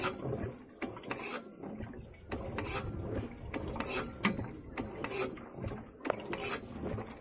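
Irregular light metallic clicks and knocks from a single-cylinder diesel engine's exposed valve gear, the rocker box open, as the engine is worked by hand.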